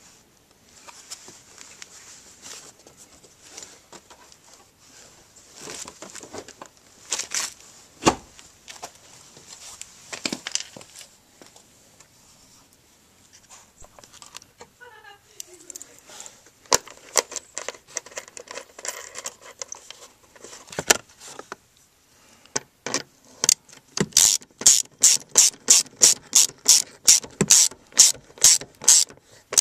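Plastic interior trim being handled, with scrapes, knocks and a short squeak. Then a socket ratchet clicks quickly and evenly, about three to four clicks a second, as it turns a bolt through a long extension near the end.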